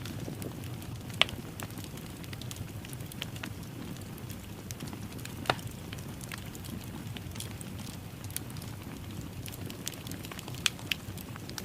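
Wood fire crackling in a fireplace: a steady low rumble of the burning fire with scattered sharp pops and snaps, the loudest about a second in, halfway through and near the end.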